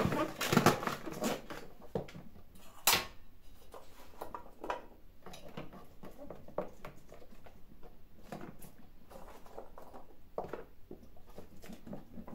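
Scattered taps, knocks and rustles of vegetables being handled and layered into a plastic pickle drum, with one sharp knock about three seconds in.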